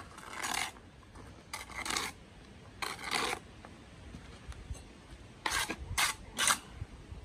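Steel bricklaying trowel scraping against freshly laid blue bricks and wet mortar, trimming off mortar: three longer scrapes in the first few seconds, then three quick ones near the end.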